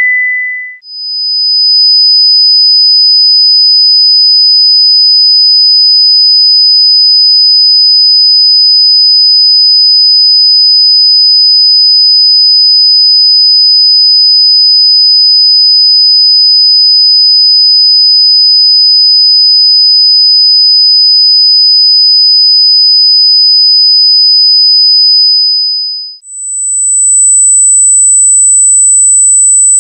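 Pure sine-wave test tones for speaker set-up. The tail of a 2000 Hz tone ends just under a second in and fades into a steady, loud 5000 Hz tone. About 26 seconds in, after a short fade, it switches to an 8000 Hz tone.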